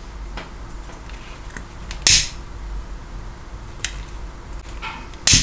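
A disposable flint lighter struck twice, a short sharp rasp-click about two seconds in and again near the end, melting the fluorocarbon line's end into a stopper blob. There are a few faint clicks of handling in between.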